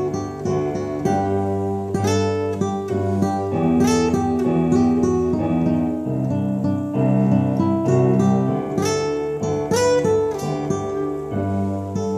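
Steel-string acoustic guitar played fingerstyle: a plucked melody over ringing bass notes.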